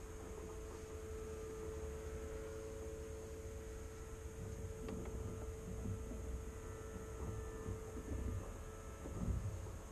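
A steady hum at one pitch over a low rumble, with a couple of faint bumps about five and nine seconds in.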